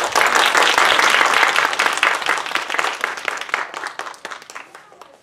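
Audience applauding, loudest over the first couple of seconds, then thinning out and dying away near the end.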